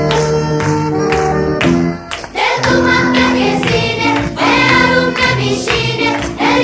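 Background music: a steady instrumental tune that drops out briefly about two seconds in, then comes back with voices singing over it.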